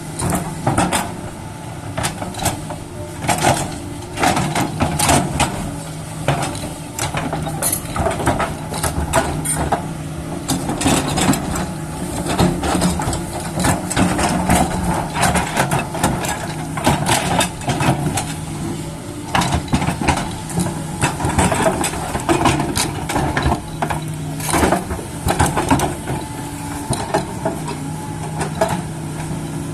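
JCB excavator engine running steadily, with frequent sharp clanks, knocks and scrapes as the machine works soil and rock.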